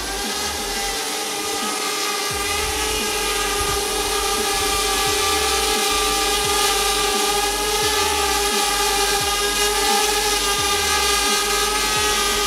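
DJI Spark quadcopter hovering low, its propellers making a steady high buzzing whine that wavers slightly as the motors hold position. It grows a little louder about four seconds in, with a low gusty rumble underneath.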